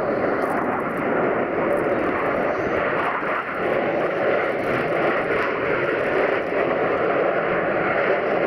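Steady jet noise from a formation of F/A-18 Hornet fighter jets flying overhead in a tight diamond.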